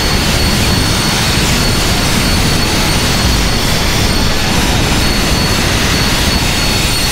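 Live electronic noise music from oscillators: a loud, dense, unbroken wall of noise with a thin, steady high tone running through it.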